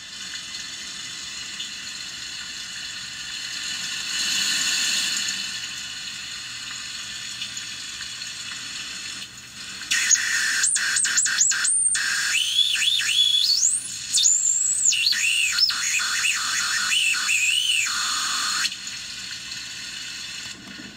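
Circuit-bent Homedics Sound Spa SS-2000 sound machine: a steady noisy hiss from its sound playback, swelling about four seconds in. About halfway through, squealing electronic tones swoop up and down in pitch while fingers rest on the unit. The tones cut off near the end, leaving a quieter hiss.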